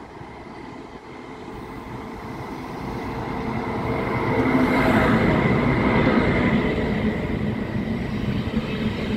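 Deutsche Bahn ICE high-speed train running in along a station platform, its power car leading: the rumble grows louder as it approaches and is loudest about halfway, when the nose draws level. A steady high whine joins at that point and carries on as the coaches roll past.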